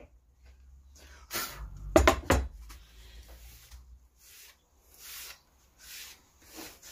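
A few sharp knocks about one and two seconds in, then a paintbrush stroked across a wooden sign board in short swishes, roughly one a second, as chalkboard paint is brushed on.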